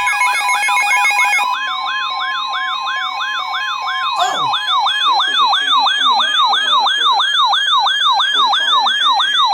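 Electronic alert siren warbling rapidly up and down, about three sweeps a second, with a steady tone under it for the first few seconds. A short falling tone comes about four seconds in, and a slowly rising tone joins near the end.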